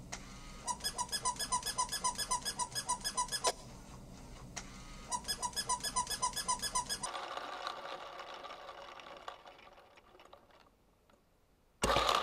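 Sound effects from a children's toy video: two runs of quick, evenly spaced high beeps, about six a second, then a hiss that fades away. A loud rattle starts suddenly near the end.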